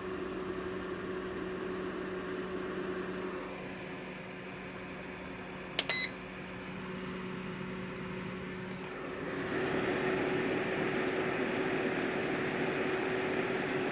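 Electric space heater's fan motor running with a steady hum. About six seconds in, its electronic controls give one short beep. From about nine seconds in, the rush of air from the fan grows louder and stays up.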